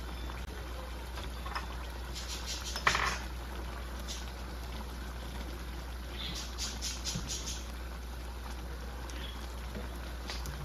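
Pork igado stew simmering and bubbling in a wok, with a wooden spoon stirring and clicking against the pan in two bursts, about two to three seconds in and again around six to seven seconds in.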